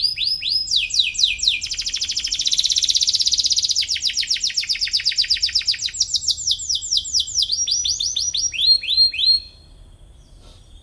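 Domestic canary singing a fast song made of rapid trills of repeated downward-sweeping notes, changing speed and pitch from one phrase to the next. The song stops about nine and a half seconds in.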